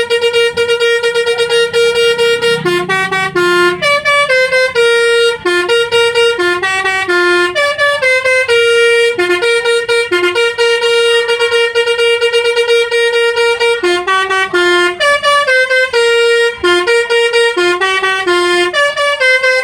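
Indonesian bus 'telolet' multi-tone horn playing a tune: a continuous run of short and held notes stepping between a few pitches.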